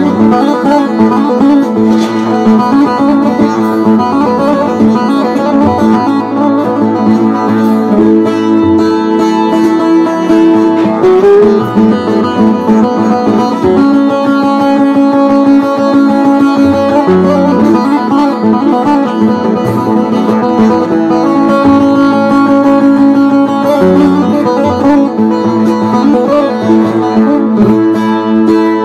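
Solo bağlama (saz) playing an instrumental passage: a continuous run of quickly plucked melody notes over ringing strings, with no singing.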